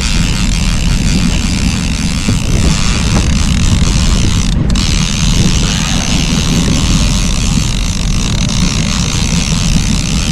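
Steady drone of a trolling fishing boat's motor, mixed with wind buffeting the microphone.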